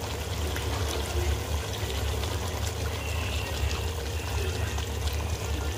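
Thick coconut milk pouring in a steady stream from a carton onto braised meat in a large enamel pot, over a steady low hum.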